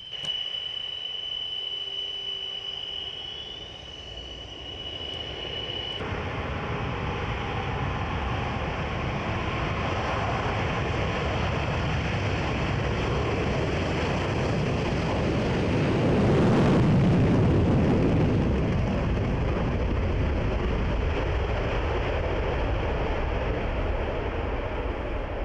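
Twin turbofan engines of a MiG-29 fighter. A steady high whine plays for the first few seconds; about six seconds in it gives way suddenly to a loud rushing jet roar as the aircraft takes off, loudest about two-thirds of the way through.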